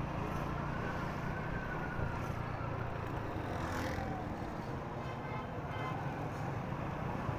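Motorcycle engine running steadily while riding through city traffic, with road and wind noise and the rumble of other vehicles around it.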